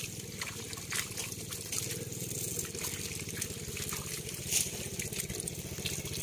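Shallow water trickling and sloshing as hands sift through a netted catch of small fish and leaves, with a few sharp splashes about a second in and again later, over a steady low hum.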